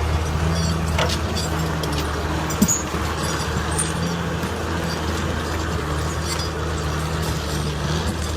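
John Deere log skidder's diesel engine running steadily, its drone rising and easing at intervals, with a couple of sharp knocks in the first three seconds.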